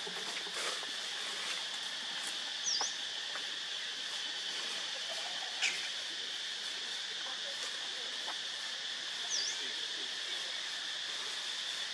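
Steady high drone of insects, with scattered faint clicks, one sharper click about halfway, and two short high chirps several seconds apart.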